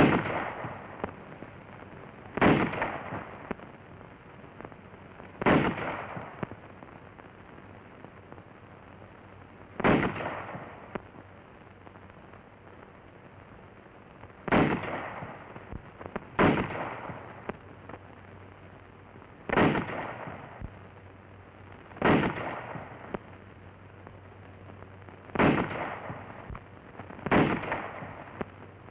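Rifle shots from a squad firing .30 caliber M1903 Springfield bolt-action rifles, the aimed fire of trained riflemen. About ten sharp reports come at irregular intervals of two to five seconds, each followed by a short echo.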